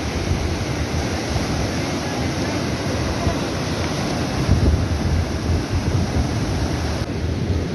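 A river in flood, its muddy torrent rushing past in a steady roar, with wind buffeting the microphone.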